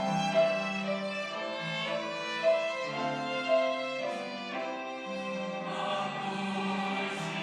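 Instrumental passage of a church choir anthem: a violin plays a sustained melody over accompaniment, growing fuller near the end.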